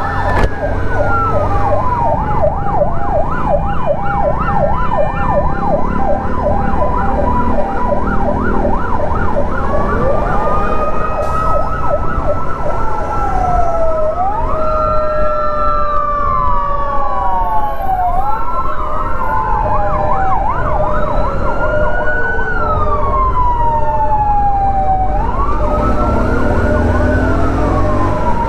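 Several emergency-vehicle sirens sounding at once over a low steady rumble. For about the first ten seconds a fast yelp sweeps up and down about three times a second, then two or more slower wails overlap, rising and falling out of step with each other.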